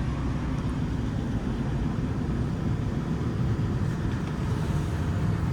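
2004 Lincoln Town Car's 4.6-litre V8 idling steadily while still cold after a cold start.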